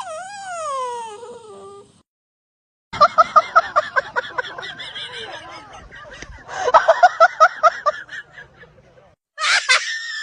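A dog vocalising in short clips: a whining call that falls in pitch, then two runs of rapid pitched yelps that sound like laughter, and a high, steady whine starting near the end.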